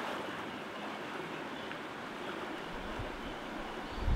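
Shallow mountain stream rushing over small rapids, a steady wash of water. In the last second and a half a low rumble comes in, with a brief thump near the end.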